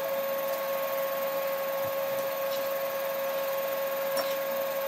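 Pakoras deep-frying in hot oil in a wok, a steady sizzle, over the constant hum of the electric cooktop. A wire spider strainer clinks against the pan once about four seconds in.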